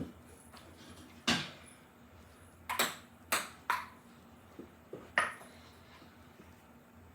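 A table tennis rally played with a cat toy ball: about six sharp, irregularly spaced knocks as the ball is hit by the paddles and bounces on the table.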